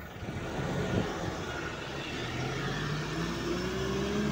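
City bus pulling away and accelerating, its engine note rising steadily in pitch over the road and tyre noise.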